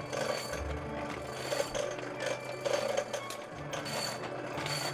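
Soft background music over a steady geared whirring and clicking from a hand-cranked mechanical forge blower.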